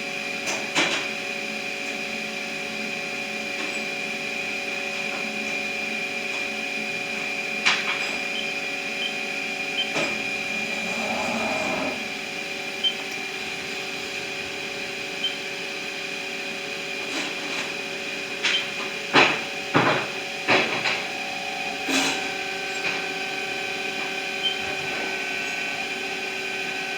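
Powered-up Haas ST20 CNC lathe giving off a steady hum of several tones. Scattered clicks and knocks sound through it, clustered near the end, with a few faint short beeps about a third of the way in.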